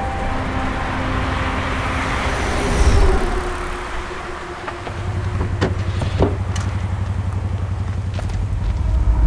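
A vehicle rumbling, swelling about three seconds in, then settling into a steady low rumble with a few sharp clicks in the second half.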